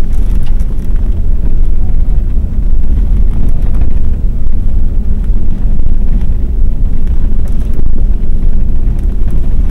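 Inside the cabin of a moving Mercedes-Benz W126: a steady low rumble of the engine and tyres on the road.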